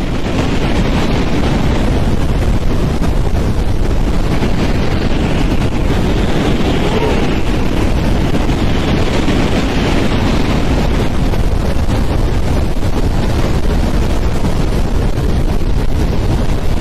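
Strong wind blowing continuously with a deep rumble underneath, its higher hiss swelling and easing in slow gusts every few seconds.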